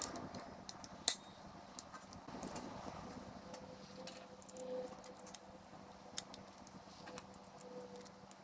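Small metal parts and a screwdriver being handled on an engine, with one sharp click about a second in and a few light ticks and taps after it.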